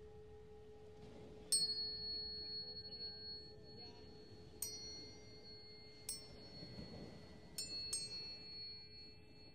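Tuning forks struck one after another, five times with the last two close together, each giving a sharp ping that rings on in high, clear tones. A lower steady tone carries on under the first strike and fades away.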